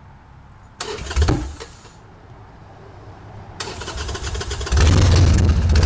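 Motor trike engine starting: a short burst about a second in, then from about three and a half seconds the engine comes up and runs loud and steady.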